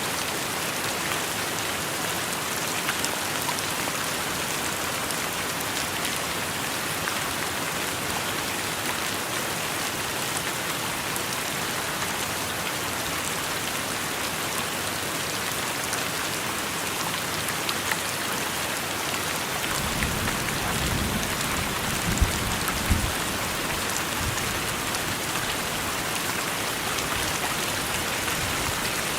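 Steady rain. About two-thirds of the way in, a low rumble joins it for a few seconds, with a couple of short, sharp peaks.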